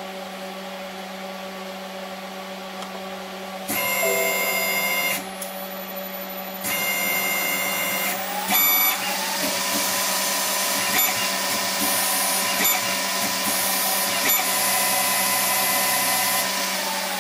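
Orac CNC lathe running a thread-cutting program under Mach3, over a steady electrical hum. The axis motors whine through two short moves about 4 and 7 seconds in. About 9 seconds in the spindle motor whines up to speed, runs steadily with a hiss and a few light ticks, and winds down near the end.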